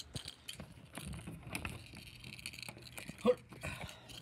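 Scattered faint clicks and knocks of someone moving about with a handheld camera, with one short voice sound about three seconds in.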